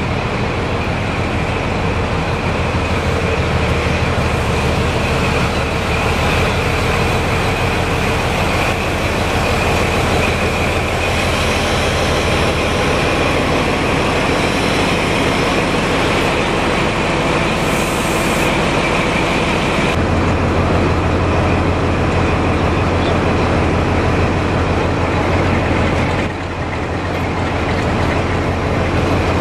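Diesel locomotive engines running, across several short clips. First the prototype HST power car 41001 runs with a low hum and a steady high whine. After cuts near 20 s and near 26 s, a Class 47 diesel locomotive runs as it approaches hauling a train.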